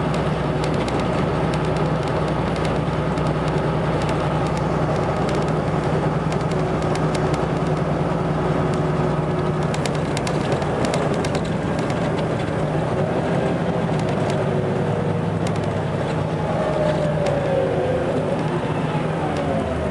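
Volvo B7RLE bus's diesel engine running with a steady drone, and a higher whine that rises in pitch near the end.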